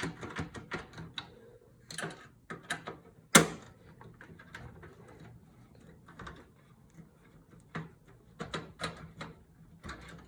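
Irregular small clicks and knocks of hands and tools working inside a desktop computer case, with one sharper knock about three and a half seconds in.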